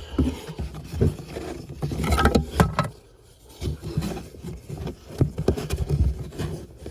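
Scraping, rustling and knocking of a cabin air filter being handled and pushed up into its housing, in irregular bursts with a short lull about three seconds in.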